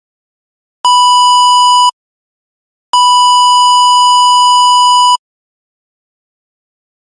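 Censor bleep: a steady high-pitched beep tone sounded twice, first for about a second, then a longer one of about two seconds, with silence between.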